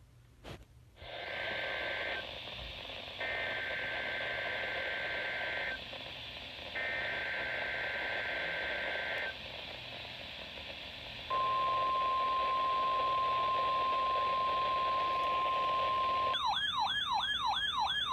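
Emergency Alert System weather-radio broadcast over radio hiss. It plays three bursts of two-tone SAME data header about a second apart, then the steady single-pitch 1050 Hz weather-radio alert tone. Near the end the alert tone gives way to a fast up-and-down warbling siren tone.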